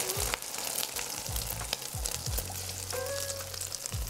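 Egg batter with bean sprouts, shrimp and onion sizzling and crackling as it is poured into hot oil in a wok, at the start of a shallow pan-fry.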